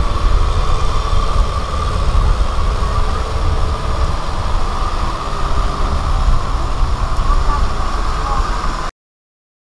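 Kubota M6040SU tractor's diesel engine running steadily under load as it pulls a rotavator through wet paddy soil, a continuous low rumble. The sound cuts off abruptly near the end.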